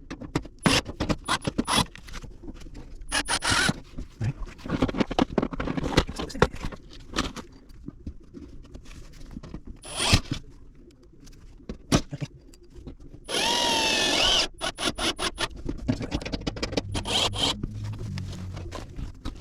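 Hand work on ductwork: repeated sharp clicks, scrapes and rattles. About thirteen seconds in, a power drill runs for about a second with a steady whine.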